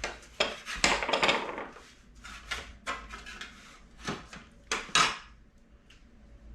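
Kitchenware being handled: a run of clinks, knocks and scrapes of dishes and utensils. The loudest clatters come about a second in and again near five seconds, then it goes quieter.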